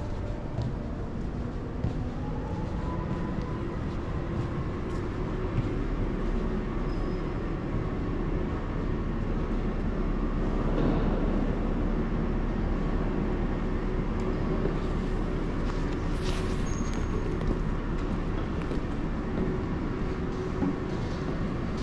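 Steady rumbling road noise of a scooter riding through a tunnel, swelling briefly about halfway through.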